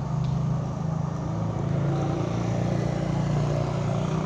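A steady low mechanical hum, like an engine running, with no speech over it.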